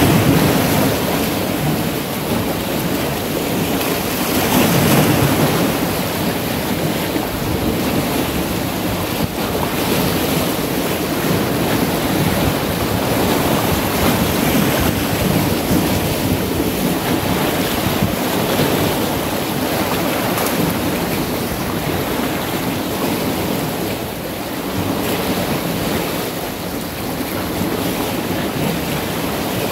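Sea surf washing in around a cluster of coastal boulders: a steady rush of water that swells and ebbs, with wind noise on the microphone.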